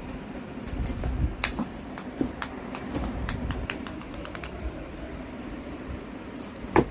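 Cat playing with a small ball: irregular light clicks and taps over low rumbling handling noise, with one sharper click near the end.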